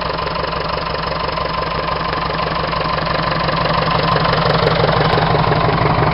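Leyland 255 tractor's diesel engine running steadily, slowly growing louder.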